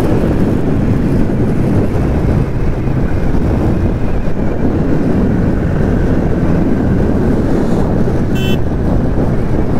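Steady wind rush on the microphone over a Bajaj Pulsar N160's single-cylinder engine, the motorcycle running at cruising speed. A short high beep sounds about eight seconds in.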